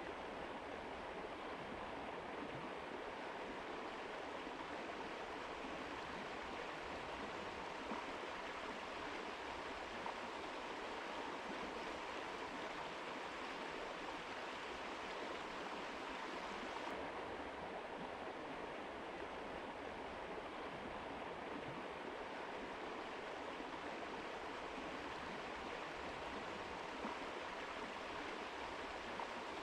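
Mountain river flowing: a steady rush of water. Just past halfway the high hiss suddenly gets a little softer.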